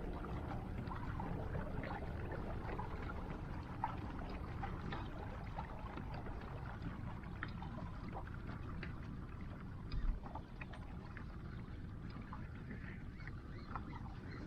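Fishing boat moving slowly while trolling: a steady low rumble with small splashes and ticks of water against the hull, and a single thump about ten seconds in.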